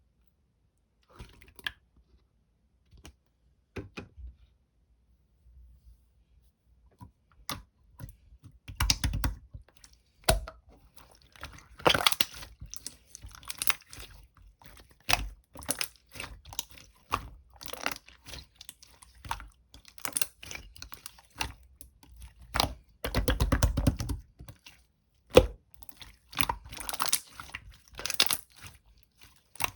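Kiwi sherbet slime being squeezed and pressed by hand, making sticky clicks, pops and crackles. There are only a few scattered clicks at first, then from about eight seconds in dense runs of crackling with a few longer squishes.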